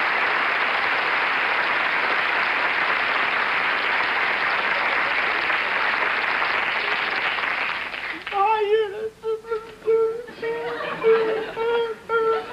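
Studio audience applauding in a steady wave that fades out about eight seconds in. A voice then carries a wavering tune in short phrases.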